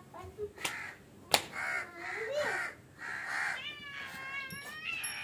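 Cat meowing: a sharp click about a second in, then several short raspy calls, and a longer drawn-out meow near the end.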